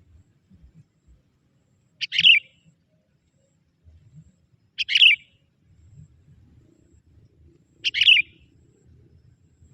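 Young sooty-headed bulbul (kutilang) lure bird giving three short, sharp calls about three seconds apart.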